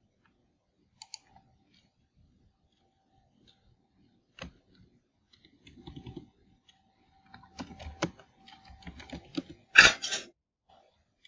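Typing on a computer keyboard: a run of quick key clicks, ending in one louder sharp hit near the end.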